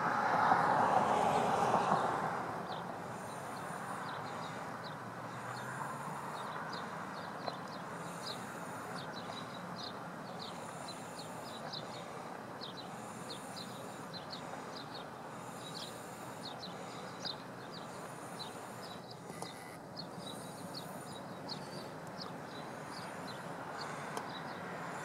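Steady outdoor background rush, louder for the first two seconds, with short high bird chirps repeating every second or so.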